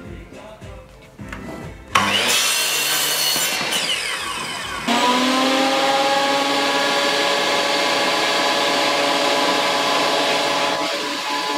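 Sliding mitre saw starting and cutting through a wooden batten, its blade then winding down. From about five seconds in, a combination planer-thicknesser motor runs steadily with a constant whine.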